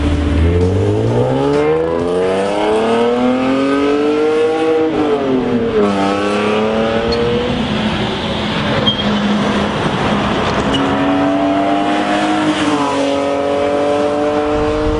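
BMW E46-generation coupe's engine and exhaust accelerating through the gears: the revs climb steadily for about five seconds, drop at an upshift, hold steady, then climb again from about ten seconds before another shift near the end.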